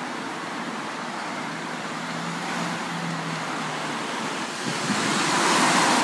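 Steady road traffic noise heard from inside a stationary car, with a faint low hum, swelling louder over the last second or so.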